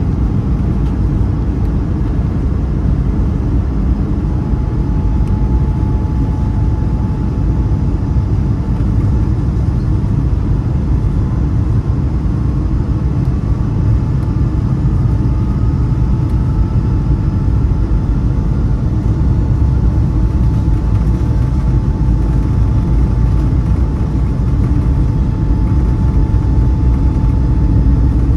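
Airbus A220-300 airliner heard inside the cabin during takeoff: its Pratt & Whitney geared turbofan engines are at takeoff power, giving a loud, steady low rumble with a steady whine. A fainter tone rises slowly partway through.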